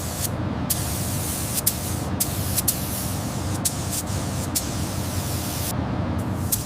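A pressurised spray hissing steadily over a low motor hum, with several short louder spurts of spray.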